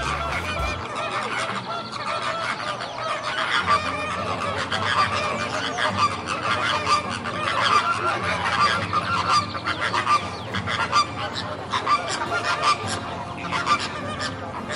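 A flock of flamingos calling, with many short goose-like honks overlapping throughout.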